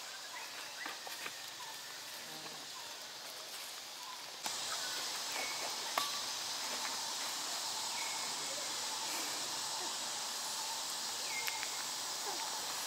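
Outdoor background: a steady high hiss with a few short, faint high chirps and one sharp click about six seconds in. The hiss grows suddenly louder about four and a half seconds in.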